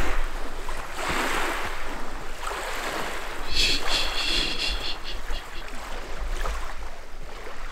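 Small lake waves lapping on a pebble shore in repeated swells, with a low wind rumble on the microphone. A brief high chirp sounds about three and a half seconds in.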